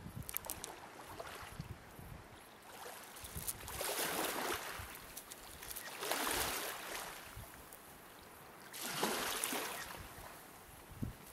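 Small waves washing onto a pebble shore: three swells of hiss about every two and a half seconds, each rising and fading away, with faint scattered clicks in between.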